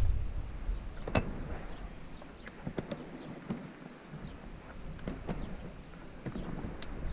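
Scattered clicks and light knocks from the rooftop tent's telescopic aluminium ladder and frame being handled, the sharpest about a second in, with a low rumble on the microphone near the start.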